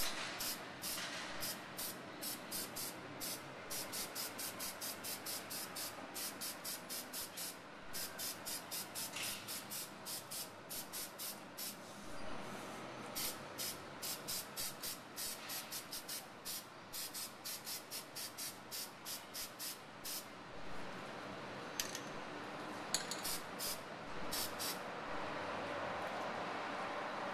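Aerosol spray-paint can hissing in rapid short bursts, a few a second, with a couple of brief pauses, as neon pink paint is sprayed onto metal grommets. A couple of sharp clicks come near the end.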